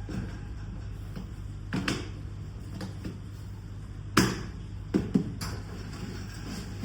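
A few scattered knocks and clunks of things being handled, the loudest about four seconds in and a quick pair just after, over a low steady hum.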